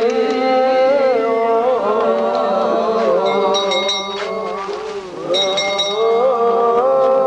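A hymn of the Eritrean Orthodox Tewahdo Church chanted by many voices in unison, slow and drawn out, the melody bending gently on long held notes. High trilling calls join in twice in the middle.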